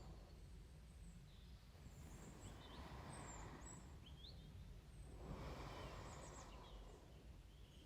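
Slow, soft breathing close to the microphone, rising and falling about every three seconds. Faint bird chirps sound in the background.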